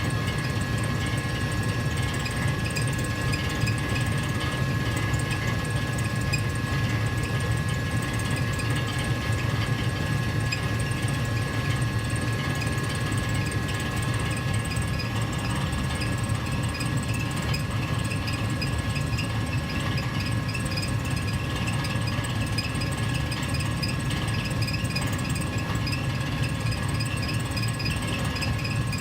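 Gas furnace running steadily: an even low rumble with a thin, steady whine over it.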